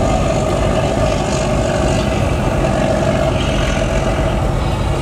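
Wooden fishing boat's inboard diesel engine running steadily just after being started, with its water pump also working.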